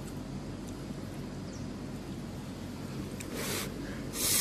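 Steady low hum, with a short rustle about three seconds in and a louder rustle right at the end.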